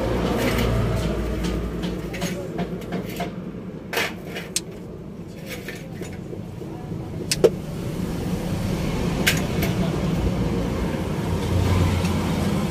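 A vehicle engine running steadily with a low hum, with a few sharp clicks and knocks of tools over it.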